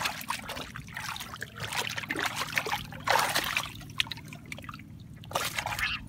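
Hands splashing and sloshing through shallow muddy water while groping for fish, in irregular bursts, the strongest about three seconds in.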